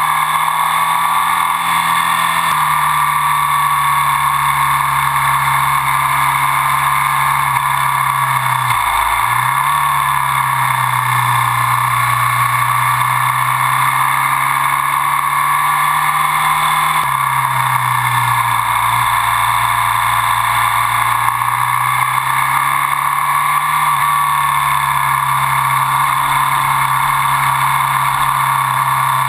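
Ducati Sport 1000's air-cooled L-twin running at speed on the road, with wind and road noise on the bike-mounted camera. The engine note holds steady and steps down in pitch a couple of times, with a brief sharp dip about nine seconds in as the throttle changes.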